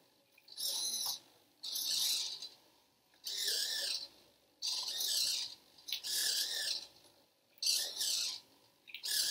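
Small hobby servo motors whirring in short bursts, about seven times, each under a second, as they tilt a cardboard labyrinth board up and down and side to side in answer to a tilted micro:bit remote.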